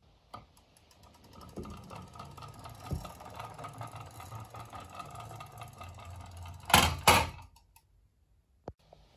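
Toy mail van rolling across a wooden board, its wheels and gearing whirring with a fine, even ticking. It ends with two loud knocks close together near the end as it drops off the board onto the floor.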